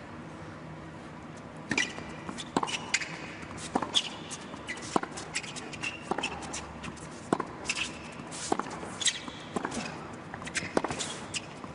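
Tennis rally on an indoor hard court: the ball is struck by rackets and bounces on the court, giving sharp clicks at an uneven pace, with the short squeaks of sneakers on the court. The first couple of seconds before the rally starts are quiet arena hush.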